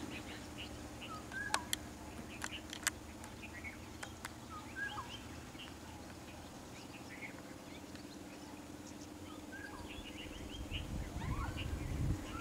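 Forest birds calling with short chirps and whistles over a low, steady vehicle engine hum, with a few sharp clicks in the first few seconds. Louder low rumbling comes in near the end.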